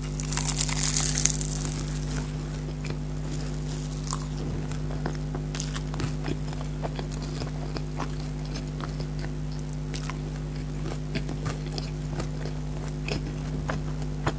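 A crunchy bite into crispy fried food, loudest in the first two seconds, followed by close-up chewing with small crunches and wet clicks. A steady low hum runs underneath.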